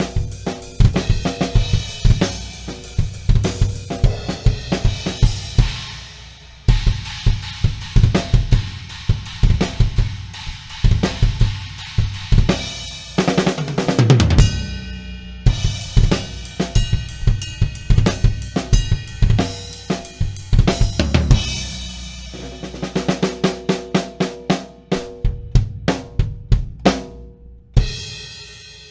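Tama Superstar Hyperdrive drum kit played close-miked: kick, snare and hi-hat grooves with Sabian AAX cymbal crashes. About halfway through comes a fill running down the toms, and it ends on a cymbal hit left ringing.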